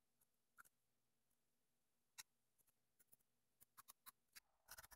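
Near silence with faint scattered clicks of a small screwdriver turning tiny screws into a thin metal camera plate: a couple of isolated ticks, then a quick run of clicks near the end.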